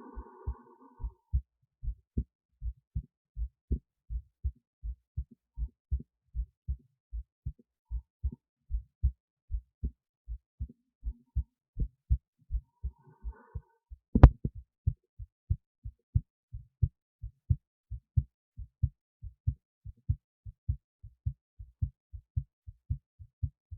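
Human heartbeat picked up by an esophageal stethoscope resting in the esophagus near the heart: a steady rhythm of low thudding beats. About fourteen seconds in, a single sharp click sounds over the beats.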